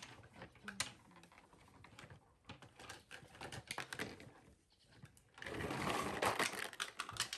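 Small plastic toys clicking and clattering on a wooden table, then a plastic net bag rustling and crinkling loudly near the end.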